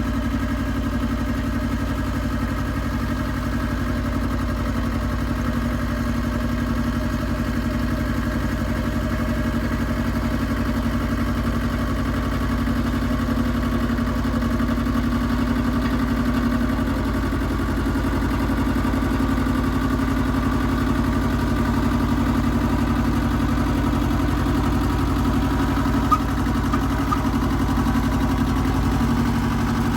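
Iseki TX1300 compact tractor's diesel engine running at a steady speed, with a few light clicks near the end.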